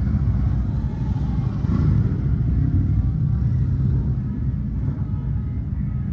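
Steady low engine rumble of idling vehicles, with a motorcycle riding past and moving off.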